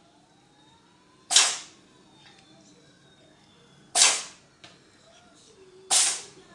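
A cat sneezing three times: short, sharp sneezes a couple of seconds apart.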